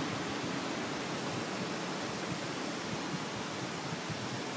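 Ocean surf breaking along a sandy beach, heard as a steady, even rush of noise.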